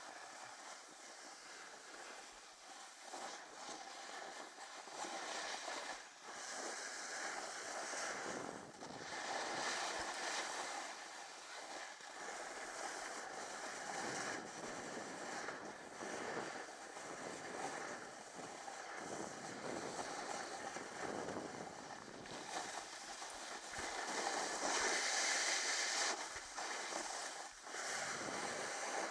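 Snowboard edge scraping and chattering over hard-packed, crusty snow, swelling and easing with each turn, mixed with wind rushing over the microphone.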